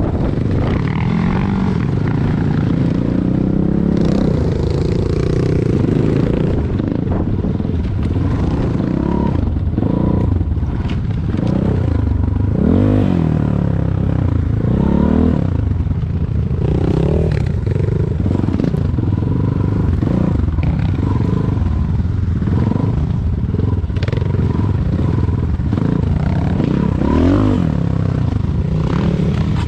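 Enduro motorcycle engine running and revving up and down again and again, with scraping and clattering.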